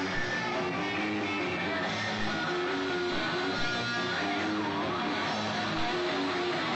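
Rock band playing live at a sound check, with strummed guitar most prominent.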